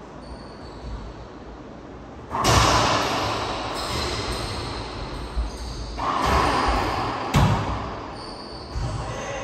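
Racquetball rally: the ball is struck and slams off the court walls, with loud echoing impacts. The first comes suddenly about two seconds in, and more follow around six, seven and a half and nine seconds.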